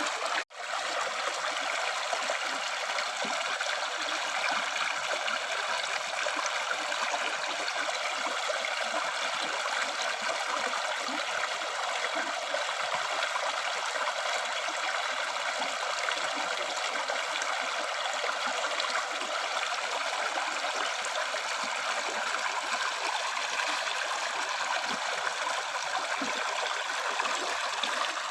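River stream flowing steadily, an even rushing and trickling of water. It cuts out for a split second about half a second in.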